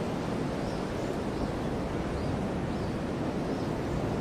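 Steady outdoor rushing of wind and sea surf, with faint short high chirps about once a second.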